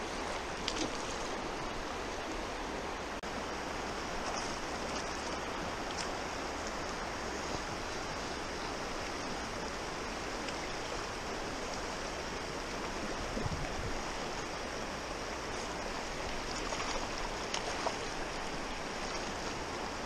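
Fast, shallow river rapids rushing steadily over stones, heard close to the water.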